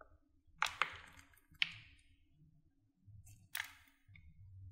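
Carved bar soap crunching and cracking as fingers press into it and snap off its cut cubes: two sharp cracks close together about half a second in, another about a second later, and one more late on, each with a brief crumbling tail.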